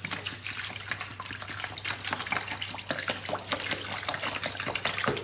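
Water poured in a steady stream from a plastic bottle, splashing onto two smartphones lying in open cardboard boxes and filling the boxes.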